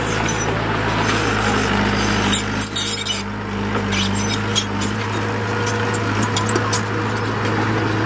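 Diesel engine of earthmoving machinery running steadily, with scattered metallic clicks and clatters, thickest in the middle.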